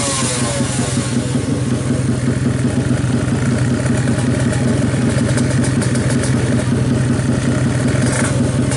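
Race-built Ninja 350cc motorcycle engine running steadily at idle, a loud even note with no revving, while its new setup is tuned.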